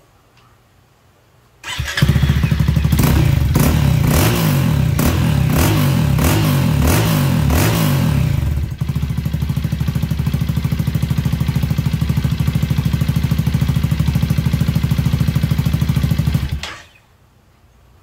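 Honda ADV350 scooter's 330 cc single-cylinder engine started with its CVT belt and pulleys removed. It runs unevenly with repeated surges for several seconds, then settles to a steady idle and is switched off near the end. It makes no abnormal noise, which the mechanic takes to mean the strange noise is not coming from the engine.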